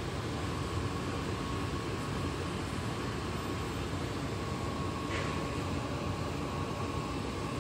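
A fan or small motor running: a steady whirring hum with a faint high tone held throughout.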